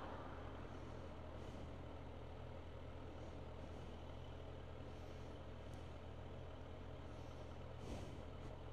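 Suzuki GSF1250 Bandit's inline-four engine idling steadily at low revs, faint, with a soft click near the end.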